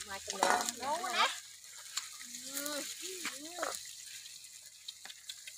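Short snatches of people talking, two brief phrases in the first half, with a few light clicks and knocks from dishes and food being handled.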